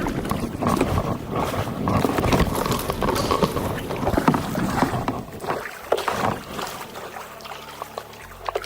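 Kayak paddles dipping and splashing in the water, irregular strokes. It grows quieter about six seconds in.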